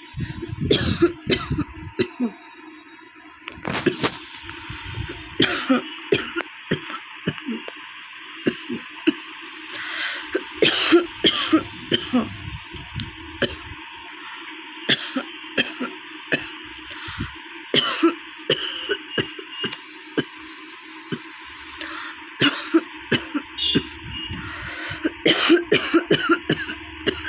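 A woman coughing over and over from a cold she has caught, short coughs coming in quick clusters.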